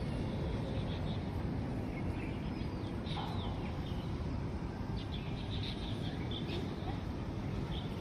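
Steady low outdoor rumble and hiss, with a few faint, short high bird chirps about three seconds in and again between five and seven seconds.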